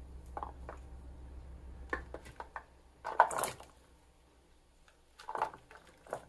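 Cooked chicken breast pieces tipped from a plastic container into a pot of soup broth and pushed out with a spatula: soft plops, squishes and scrapes in several short bursts, the loudest about three seconds in.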